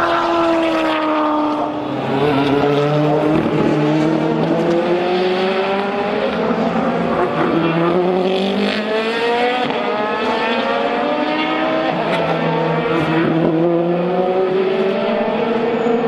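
Several race car engines accelerating out of a corner at full throttle. Each engine note climbs slowly in pitch and drops sharply at each upshift, roughly every five seconds, with more than one car audible at once.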